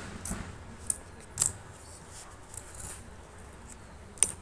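Metal coins clinking as they are picked out of a heap by hand and dropped onto a pile on a concrete floor: about five separate chinks, the loudest one near the end.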